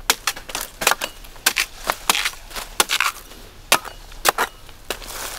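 A blade chopping into coconut palm wood: quick, sharp, irregular strikes, often in pairs, about three a second.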